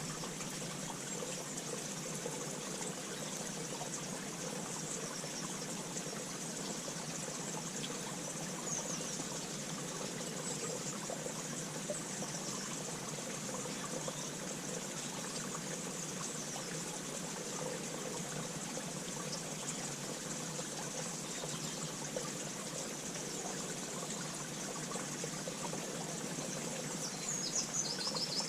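Steady rushing background noise, like running water or a stream, with a few faint high bird chirps and a short cluster of bird calls near the end.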